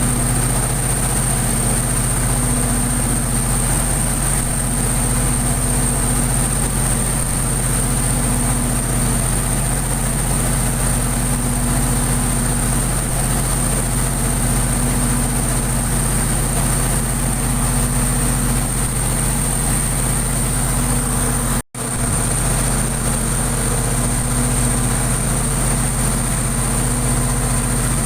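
Diesel generator set running steadily under test, a constant engine hum with a steady high whine above it. The sound drops out for an instant about three quarters of the way through.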